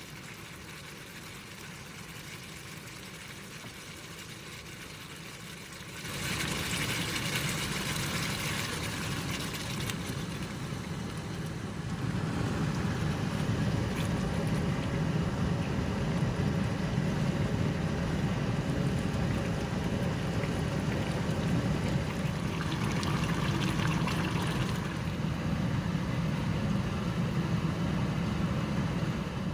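Steady watery noise of liquid in a cooking pot. It grows louder about six seconds in and again about twelve seconds in, with a low rumble under it, and drops off just before the end.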